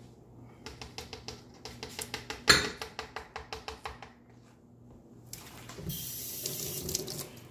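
A quick run of light clicks and taps at a plastic blender cup, about six a second, with one louder knock about two and a half seconds in. Later, cloth rubbing across the microphone as a sleeve brushes over the camera.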